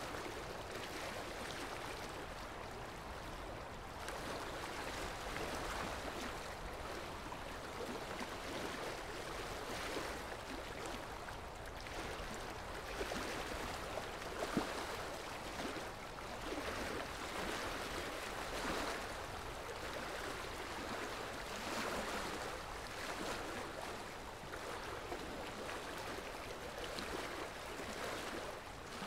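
Steady rushing sound of flowing water, swelling and easing now and then, with a single faint tick about halfway through.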